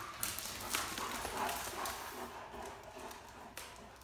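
Dogs' paws and claws clattering and scuffling on a hard tile floor as a Great Dane and two smaller dogs run and play, busiest in the first couple of seconds, with a single knock near the end.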